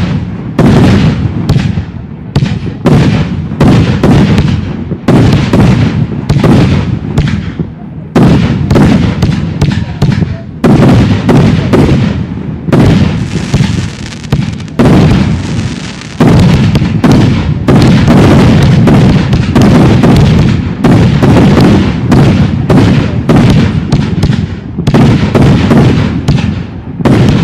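Professional aerial fireworks going off in a rapid, continuous volley: loud bangs of launches and shell bursts, several a second, with a stretch of hissing about halfway through.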